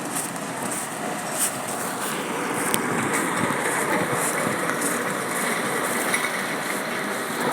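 Steady vehicle noise outdoors, like a car engine running, with a few faint ticks.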